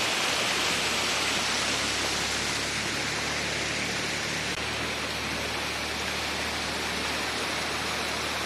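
Water spilling over a low river weir (anicut) in a steady rushing sheet, easing slightly after a few seconds.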